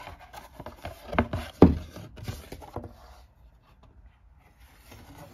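A folded cardboard game board being handled and opened out on a wooden table: rustling and scraping of the board, with a couple of sharp knocks, the loudest about a second and a half in.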